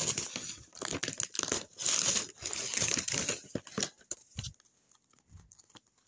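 Paper crinkling and rustling as a handmade paper bag is crumpled and folded in the hands. It is dense for about the first four seconds, then thins to a few light clicks.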